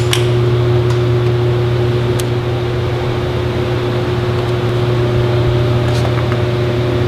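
Steady low machine hum with a hiss over it from an automatic screen-printing press, with a few faint clicks.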